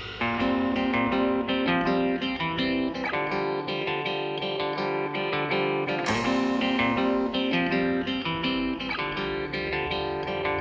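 Background music: a plucked guitar picking a run of quick notes, starting a new phrase about halfway through.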